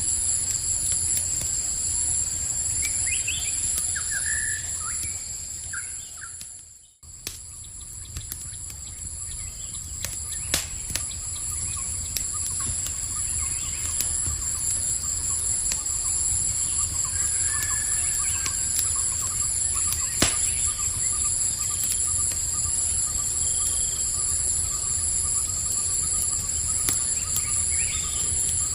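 Campfire crackling with scattered sharp pops over a steady, high chorus of night insects such as crickets, with a few short bird chirps. About seven seconds in, everything fades out almost to silence and comes straight back.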